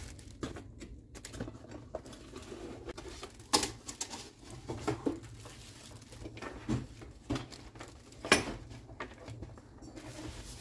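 Parts of a new electric coffee grinder being handled on a countertop: scattered light clicks and knocks as the stainless steel cup is fitted and the body moved, with two sharper knocks, one a few seconds in and one later on.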